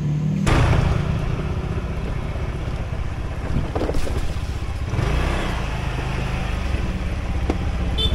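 Motor scooter engine running as it rides along, with wind rushing over the microphone; the low engine rumble grows stronger about five seconds in.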